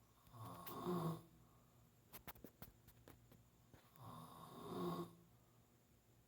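An elderly man snoring in his sleep: two snores, about four seconds apart, with a quick run of faint clicks between them.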